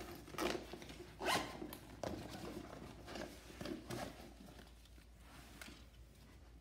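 A fabric bag's zipper pulled in a series of short rasping strokes, the loudest a little over a second in, tailing off near the end.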